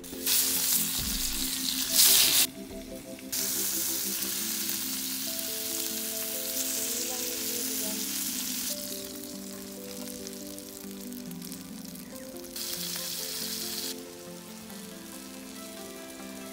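Marinated whole fish frying in hot oil in a clay pan, a steady sizzle that starts suddenly just after the start. It flares up loudly for a moment about two seconds in, then carries on, rising and falling in strength.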